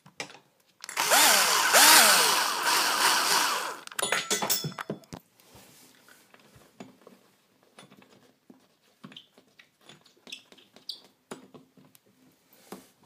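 Cordless power drill driving a screw to fasten a metal curtain rod bracket to drywall, running for about three seconds with its motor pitch rising and falling as the trigger is worked. Faint clicks and handling follow.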